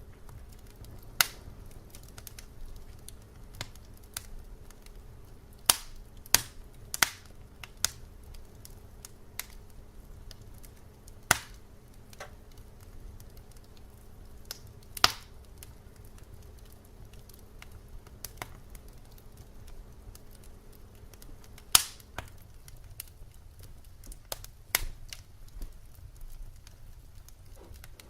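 Firewood burning with irregular sharp pops and snaps over a low steady rumble. A faint steady hum underneath stops about three-quarters of the way through.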